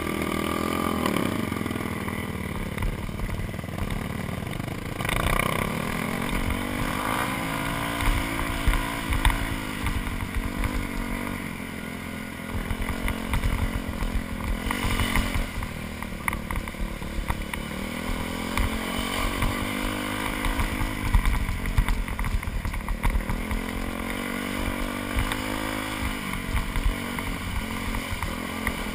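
A 2001 Yamaha YZ426F dirt bike's four-stroke single-cylinder engine revving up and down as it is ridden, the pitch climbing and dropping every few seconds as the throttle is worked.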